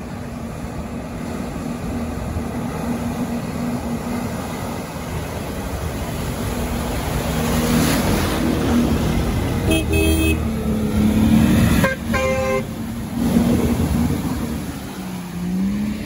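Off-road vehicle's engine running steadily while driving. There is a short horn toot about ten seconds in and a longer one about twelve seconds in, and the engine revs up near the end.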